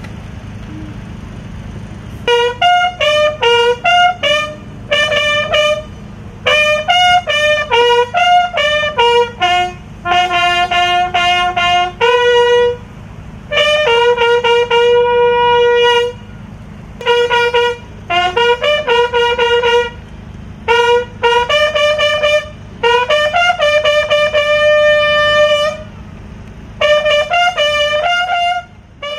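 Military bugle call sounded at a funeral: phrases of short and held notes with brief pauses between them, starting about two seconds in, over a steady low hum.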